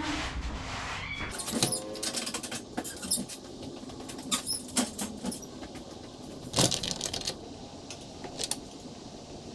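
Irregular sharp clicks and knocks of engine parts being handled while being taped up and loaded for transport, with a brief squeak early on and a low rumble in the first second.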